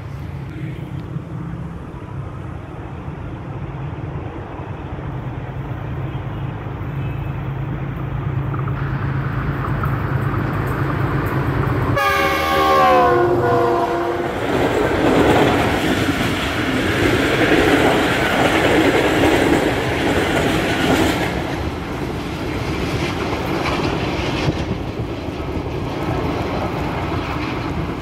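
Pakistan Railways GEU-20 diesel-electric locomotive passing at speed with an express passenger train. Its engine rumble builds as it approaches. Its horn sounds about halfway through, dropping in pitch as the locomotive goes by, and then the coaches rumble and clatter past over the rails.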